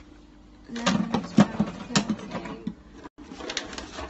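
Plastic water bottles clattering and crinkling as they are grabbed off shelves and knocked together, a quick run of clicks and knocks. About three seconds in, the sound drops out briefly at an edit, then more clattering.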